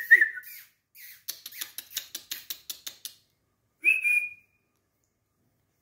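A person calling a puppy with mouth sounds: a quick run of about ten sharp clicks, five or six a second, then a short high whistle about four seconds in.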